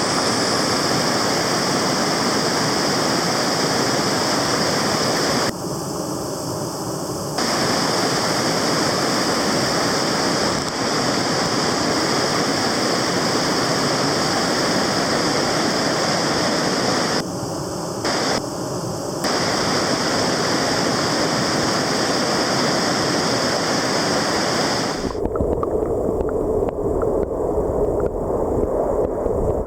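Stream water rushing steadily over rocks, with brief changes in its sound twice. About 25 s in, it gives way to a duller low rumble.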